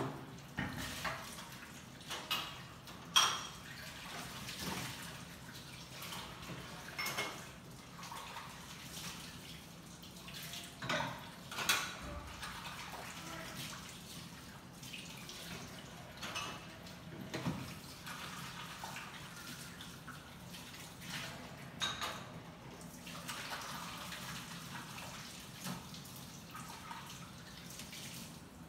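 Dishes being washed in a kitchen sink: water running and splashing, with irregular clinks and clatters of dishes and utensils knocking together.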